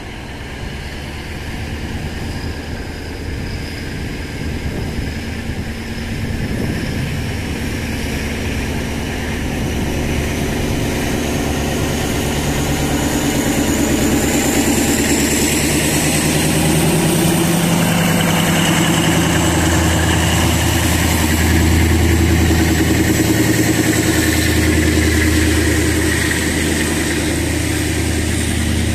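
DE 24000-class diesel-electric locomotive DE 24414 running as it hauls a freight train past, its engine getting louder as it comes closer, with a faint high whine that rises in pitch over the first half. In the second half the locomotive goes by and freight wagons roll past.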